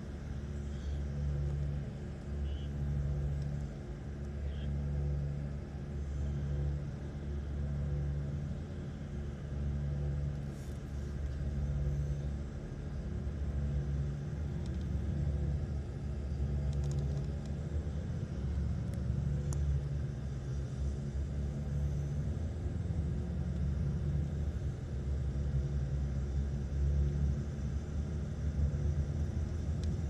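Low rumble of engine and tyre noise heard inside a moving vehicle at highway speed. The drone throbs about every second and a half at first, then evens out into a steadier rumble.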